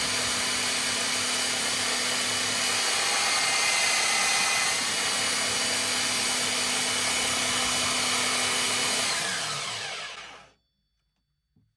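Einhell TC-BS 8038 800-watt belt sander running with no workpiece on the belt, a steady whine. About nine seconds in it is switched off and the whine falls away as the belt spins down, stopping after about a second and a half.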